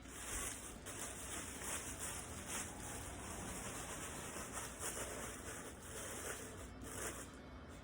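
Packaging rustling and rubbing as the statue's parts are unwrapped and handled, in small irregular bursts.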